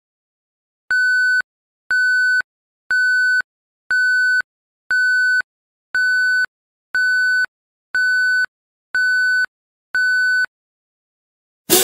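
Countdown timer beeping: ten short, identical electronic beeps, one each second. A sudden loud crash starts at the very end.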